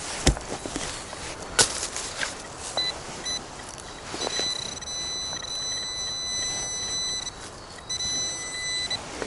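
Metal detector sounding on a target: two short high beeps, then a steady high-pitched tone held for about three seconds, a brief break, and the tone again for about a second. A few sharp knocks come in the first two seconds.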